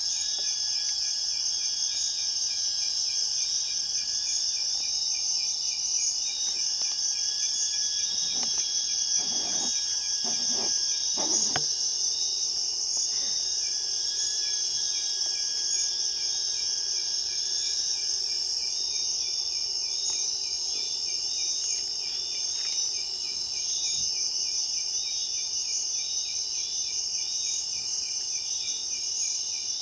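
Night chorus of crickets and other insects: a steady high trill overlaid with several regularly pulsed calls, and a thin tone that drops out and returns a few times. A few soft low knocks sound around the middle.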